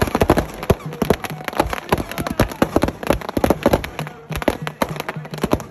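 Firecrackers packed into a burning Ravana effigy going off in rapid, irregular bangs and crackles, many a second.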